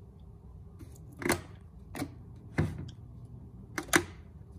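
Sharp plastic clicks from the top slide switches of a GE 7-4310 flip clock radio being pushed by hand: about five clicks, spaced roughly half a second to a second apart, the last two in quick succession.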